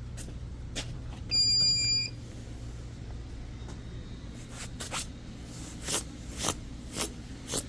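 A single loud electronic beep about a second in, lasting under a second, over a steady low electrical hum, followed by several short clicks and taps. Its source is unidentified, a noise the listener finds weird.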